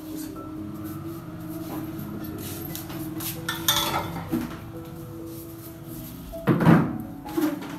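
Metal knocks and clanks from a steel wall-mount pull-up bar being lifted and set down on a stone-tile floor: a few separate knocks, the loudest near the end, over steady background music.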